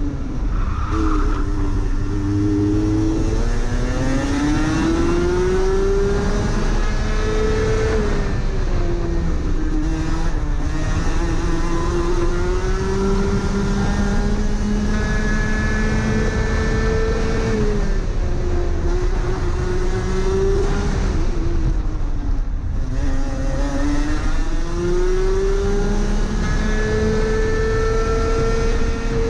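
Rotax Max Senior 125 cc single-cylinder two-stroke kart engine at racing speed, heard from onboard the kart. Its pitch climbs along the straights and drops off several times as the driver lifts for the corners.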